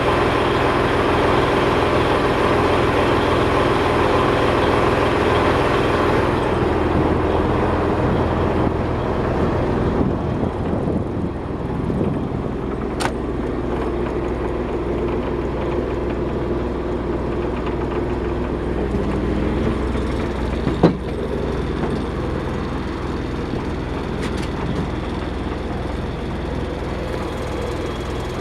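Yanmar 6KY-ET marine diesel engine of a 50-foot boat running steadily. Its sound changes about six seconds in and again about twelve seconds in. There is a single sharp click about twenty-one seconds in.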